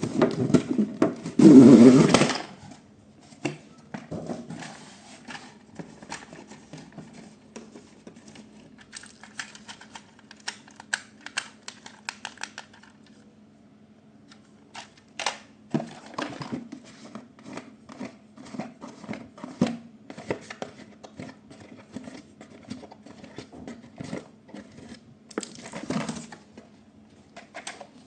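Irregular clicking, tapping and rattling of toys being handled, with a brief louder rustle about two seconds in.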